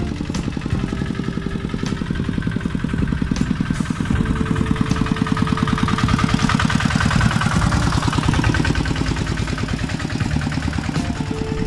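Single-cylinder diesel engine of a two-wheel walking tractor running under load as it tows a heavy trailer, a steady rapid putter that grows louder toward the middle as it passes close.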